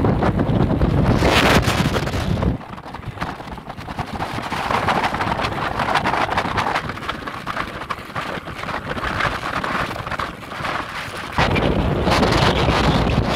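Wind rushing over the microphone of a camera on a moving motorcycle, with the bike's road noise beneath. The heavy low rumble cuts out abruptly about two and a half seconds in and comes back just as suddenly near the end.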